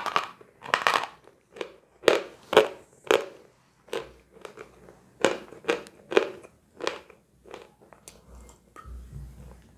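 A chunk of chalk bitten off with a sharp crack and then chewed close to the microphone, with crisp crunches about two a second that soften after about seven seconds. Near the end come quieter sounds of water being sipped and swallowed from a glass.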